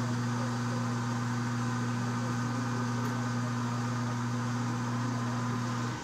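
Encore29 coffee machine running as it prepares a drink into a paper cup: a steady low hum with a hiss, which cuts off suddenly just before the end.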